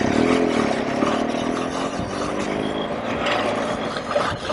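BMW R1200GS Adventure's boxer-twin engine running under way, its note rising and falling slightly, over a steady rush of wind noise on the helmet-mounted microphone.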